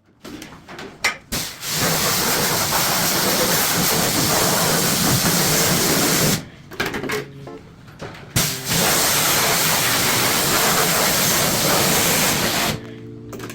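A cleaning sprayer jetting in two long hissing bursts of about four seconds each, with a short pause and a few clicks between them.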